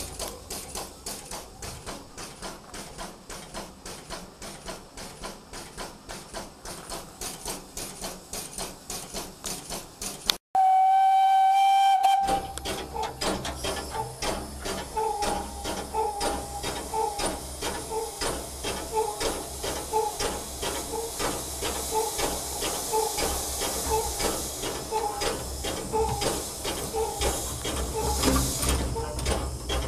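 Small steam tank locomotive running, with rapid regular beats of about four or five a second. About ten seconds in, a short loud blast on its steam whistle; after it, steady steam hiss with the engine's rhythmic beats, heard from the footplate.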